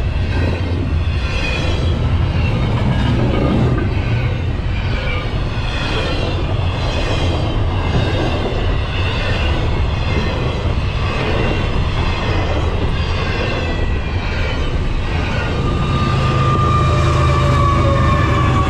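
Double-stack intermodal freight train rolling past: a steady rumble and clatter of the well cars' wheels on the rails. Near the end a distributed-power locomotive draws level, and its engine rumble grows louder with a steady whine over it.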